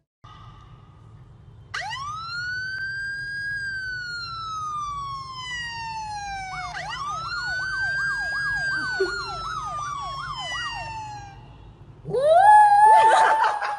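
Siren sound effect playing from a smartphone: one long wail rising and slowly falling, then a second wail with a fast yelping warble over it. About twelve seconds in, a white poodle howls once, loud, rising and then falling in pitch.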